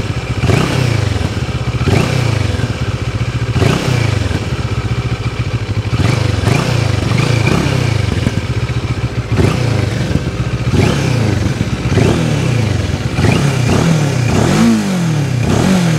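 CFMoto 650 GT's 649 cc parallel-twin engine idling through its stock exhaust and free-revved in neutral in about ten sharp throttle blips, each falling back to idle; a typical twin-cylinder exhaust note.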